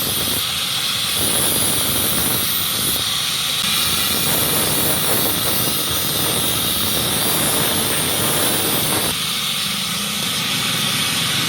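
Knife blade being ground on a spinning sharpening wheel: a continuous grinding hiss whose texture shifts every few seconds.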